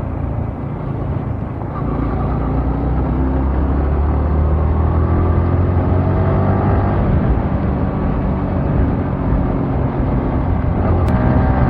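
Motorcycle engine running on the move under a heavy rumble of wind and road noise, its pitch climbing for a few seconds as it accelerates.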